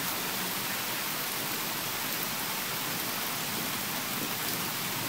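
Steady, even hiss, mostly high-pitched, like falling rain, holding at one level throughout.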